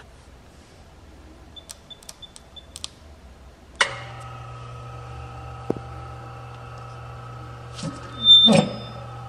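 Four short electronic keypad beeps on a Micron Air Jet Sieve, then the sieve starts up just before halfway with a sudden click and runs with a steady hum. Near the end there is a brief metallic clatter as its stainless sieve screen is handled on top of the machine.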